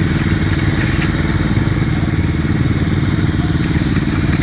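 Vehicle engine running steadily and close by at a constant pitch, without revving.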